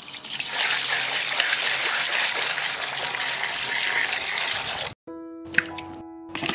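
Water pouring in a steady stream into an enamel basin and splashing, cut off sharply about five seconds in. Then light music with two short plops as bell peppers are dropped into the water.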